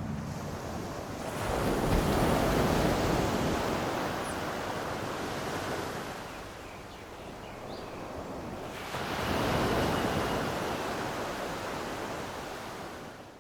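Sea waves washing in and drawing back in slow surges, swelling about two seconds in and again about ten seconds in.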